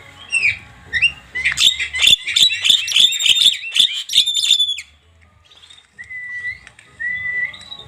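A songbird singing: a few short rising whistles, then about three seconds of fast, sharp chattering notes, then two brief level whistles near the end.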